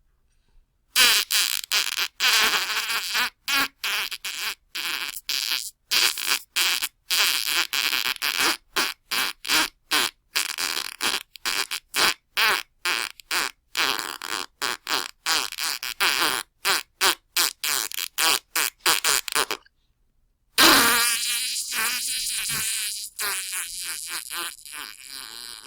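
Fart sound: a long run of short sputtering blasts, two or three a second with brief gaps between, for most of the time. Then, after a second's pause, one long drawn-out fart that slowly fades.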